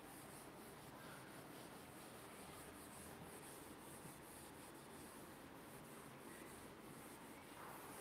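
Faint rubbing of a duster wiping a whiteboard clean, in many short repeated strokes.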